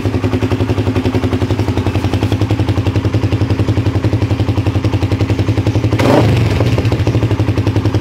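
Suzuki Raider 150 Fi's single-cylinder four-stroke engine idling through a VMAX aftermarket exhaust with its silencer insert fitted: a steady, rapid pulsing, with one brief rev about six seconds in.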